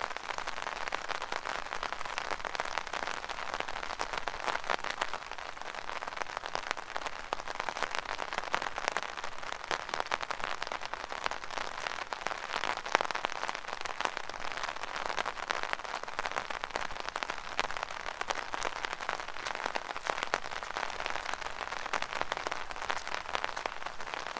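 Dense rain pattering on an umbrella overhead, with footsteps splashing through small puddles.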